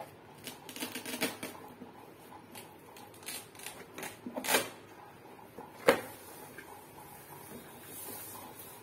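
Cardboard packaging handled and opened by hand: scraping, rubbing and tapping of cardboard in irregular clusters, with a single sharp knock about six seconds in, the loudest sound, and a soft sliding rustle near the end.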